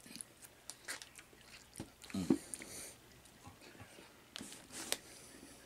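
Eating sounds: a plastic utensil clicking against a small container as food is picked out, with chewing and mouth noises, and a short low grunt about two seconds in.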